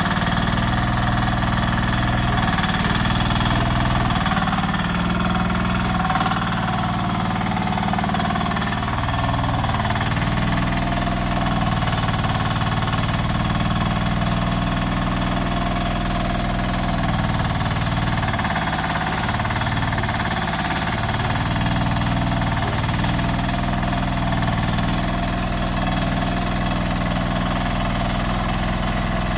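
Rippa R10 mini excavator's engine running steadily while the machine digs, its pitch dipping briefly now and then.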